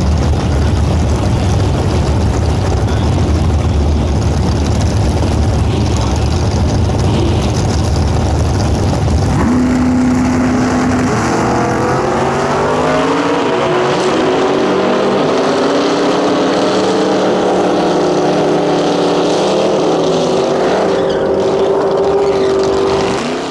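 Two V8 drag-racing muscle cars idling loud and lumpy on the starting line. About nine seconds in an engine is held at a steady rev. A couple of seconds later they launch at full throttle, engine pitch climbing in steps through the gear changes as they run down the quarter mile.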